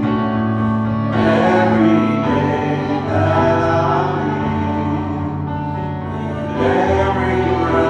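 Gospel worship music: voices singing over sustained chords, with the singing swelling about a second in and again near the end.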